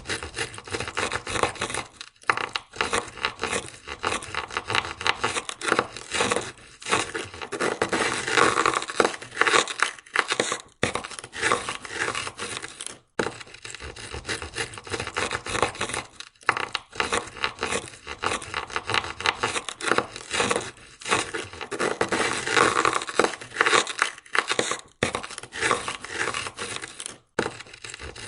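Ice scraper scraping ice off a car window in quick, repeated strokes, with brief pauses every few seconds.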